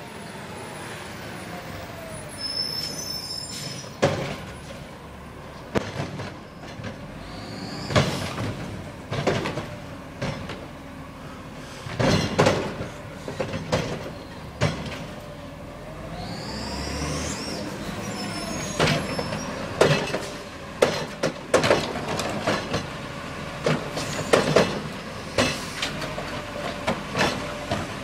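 Front-loading garbage truck pulling up and stopping at the curb: engine running, brakes squealing in high rising and falling glides, and repeated clanks and bangs of metal from the truck's body and carrier bin.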